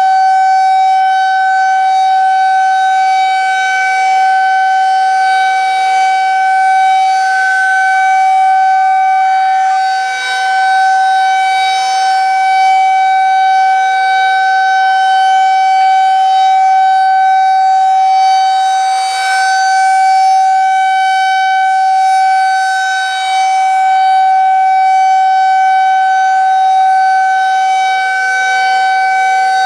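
Federal 2001-SRN rotating electromechanical warning siren sounding a steady test alert: one loud wail held at a constant pitch without winding down, its loudness swelling and dipping gently.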